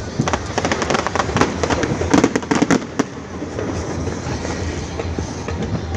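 Fireworks going off in a rapid run of sharp bangs and crackles, densest and loudest about two to three seconds in, then thinning out to scattered pops.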